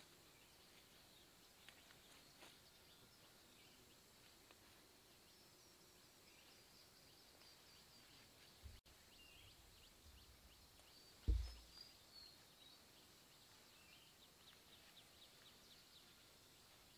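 Quiet outdoor ambience with faint, repeated high chirps. A dull low thump about eleven seconds in is the loudest sound, with a softer one a little before it.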